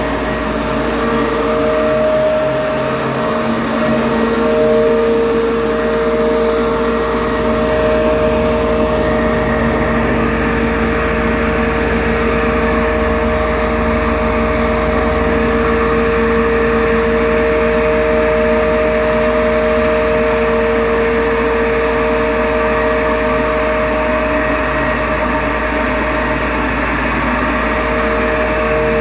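Rice husk grinding machine running steadily, a continuous machine noise with a steady whine held throughout.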